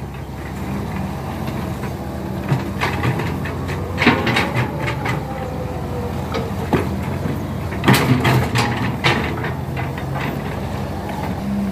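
Hydraulic excavator's diesel engine running steadily while it digs clay, with sharp clunks and scrapes from the bucket, loudest in clusters about four seconds and eight to nine seconds in.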